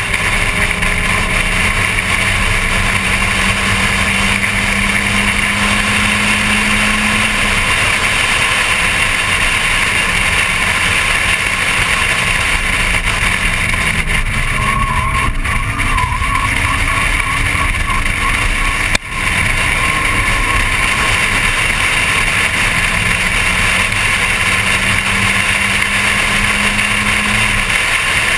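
Volkswagen Golf Mk1's 1.8-litre four-cylinder engine pulling hard at racing speed. Its pitch climbs slowly, then falls away as the driver lifts, twice, under a steady rush of wind over the microphone. About halfway through there is a brief wavering squeal of tyres through a corner.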